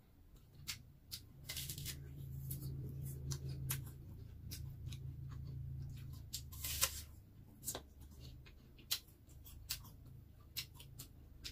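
Close-up eating sounds: crunching bites into a whole raw apple and crisp chewing, with two louder crunches at about a second and a half and seven seconds in. A low muffled sound sits under the chewing through the middle few seconds.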